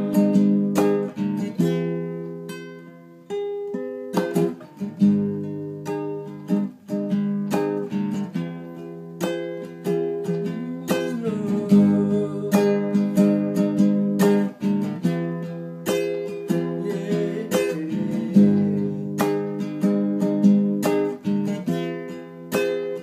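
Nylon-string classical guitar played solo, fingerpicked chords and single notes ringing and decaying in turn. The playing thins out briefly about two to three seconds in, then picks up again.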